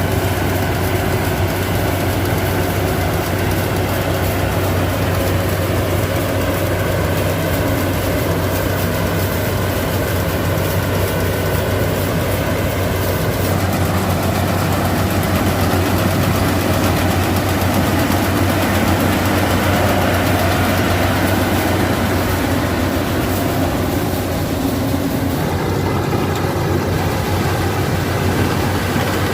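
Yanmar AW82V combine harvester running steadily: a constant low engine hum under a broad mechanical rush of the working machinery. Its tone changes slightly about halfway through.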